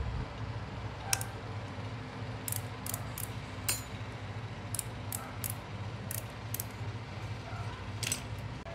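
Scattered light metallic clicks and clinks, about a dozen at irregular intervals, as small hand tools work on the brass chain wheel of a weight-driven wall clock, over a steady low hum.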